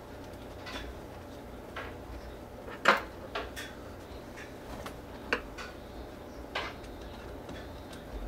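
Scattered sharp clicks and taps of a small screwdriver and a plastic thermostat base plate being fitted and fastened to the wall, the loudest one about three seconds in, over a steady low hum.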